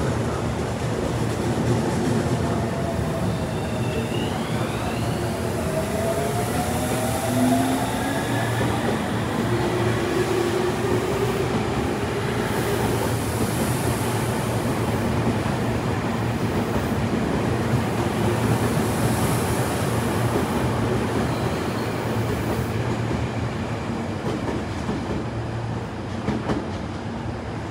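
Electric commuter train pulling out of a station platform. Rising motor whine comes a few seconds in as it accelerates, then the wheels and rails run on as the cars pass, and the high-pitched rail noise stops about three quarters of the way through.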